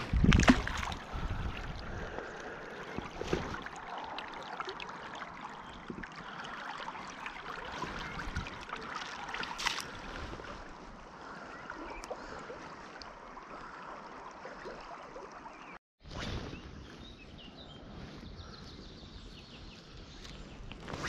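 River water flowing and trickling over stones as a steady rush, louder and lower near the start. About three quarters of the way through it cuts out for a moment, then resumes softer.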